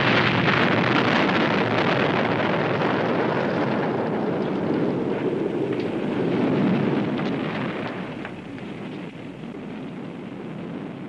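A huge explosion sound effect: a sudden blast that rumbles on for several seconds and slowly dies away.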